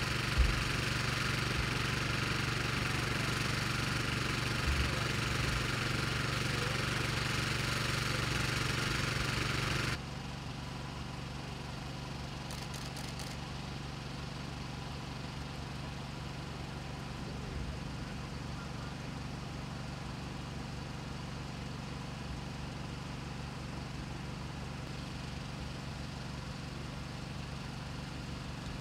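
Engine idling steadily with a low hum, with one short knock just after the start; the hum drops to a quieter level about ten seconds in.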